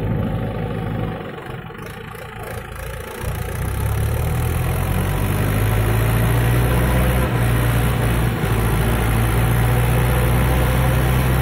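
Mahindra 415 DI tractor's diesel engine running at idle, then louder from about three seconds in and holding a steady note as it pulls away with a trolley loaded with soil.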